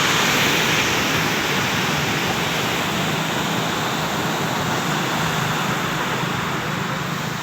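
Heavy surf breaking on a beach at high tide: a continuous rush of waves, loudest about a second in and easing slowly.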